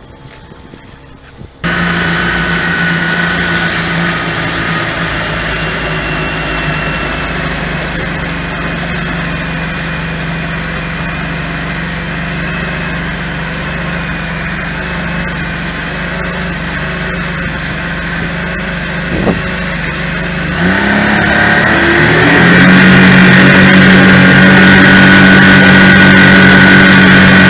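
Honda four-stroke outboard motor running at speed, heard from aboard the boat, with rushing wind and wake. It cuts in suddenly about two seconds in, and about 21 seconds in the engine revs up, rising in pitch and growing louder as the throttle is opened.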